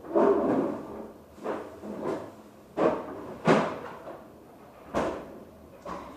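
A series of about seven knocks and bumps, spaced irregularly, as a freezer is opened and frozen packages are shifted around inside it.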